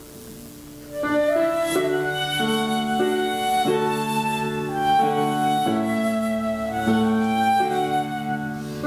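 Instrumental music: a slow melody of held notes over sustained chords. It starts about a second in, after a brief pause.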